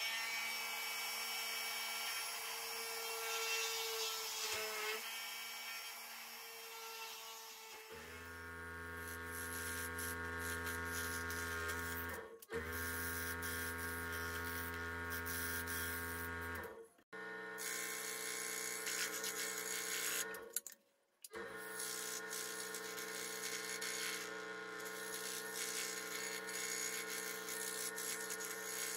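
A small handheld electric drill whines steadily as it bores starter holes through a thin wood blank. About eight seconds in, a scroll saw takes over, running and cutting the thin wood with a steady low hum. The saw's sound breaks off briefly three times.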